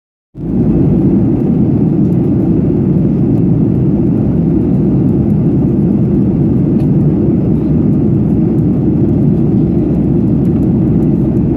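Steady, deep cabin noise of a Ryanair Boeing 737 in flight, heard from inside the cabin by the wing: an even rush of jet engines and airflow that does not change.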